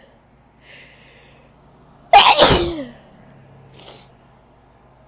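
A woman sneezes once, loudly, about two seconds in, her voice falling in pitch through the sneeze, after a soft breath in; a short breath follows about a second later. The sneeze comes from an itchy nose.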